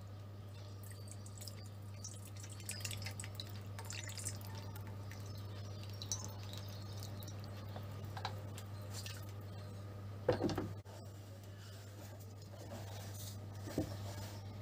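Pan juices trickling and dripping through a fine-mesh strainer into a metal bowl, with small ticks of liquid, a steady low hum behind and one sharper knock about ten seconds in.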